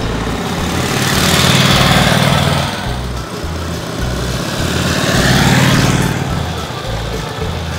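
1915 Harley-Davidson 45-degree V-twin engine running as the motorcycle rides by, growing loud and fading twice, at about two seconds in and again at about five and a half seconds.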